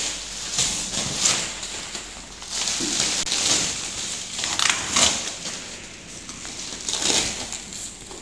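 Large cardboard box being opened by hand: its flaps and sheets scraping, flexing and rustling in irregular bursts.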